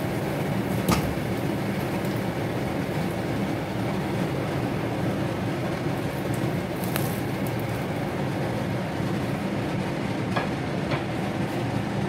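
Battered bread snacks sizzling as they fry on a hot flat tawa over a gas burner, under a steady low rumble, with a few light clicks as a silicone spatula lifts pieces off the pan.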